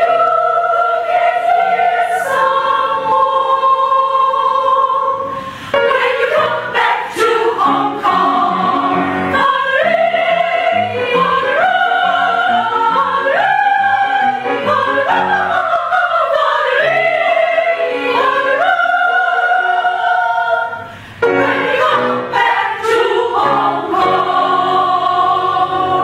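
Classical choral music: voices singing in an operatic style, held notes moving up and down, with two brief breaks between phrases.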